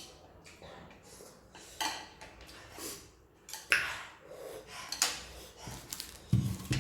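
Close-up eating sounds: scattered clinks of cutlery against dishes mixed with mouth and breath noises. There is a heavier low knock near the end, like a dish or cup set down.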